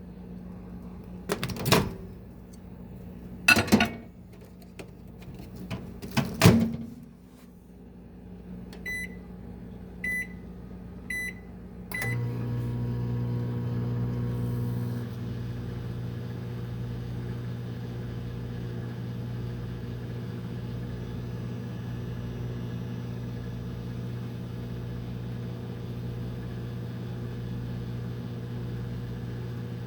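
Microwave oven being loaded and started: three sharp clicks and knocks from the door, three short beeps as it is set, then about twelve seconds in it starts and runs with a steady hum.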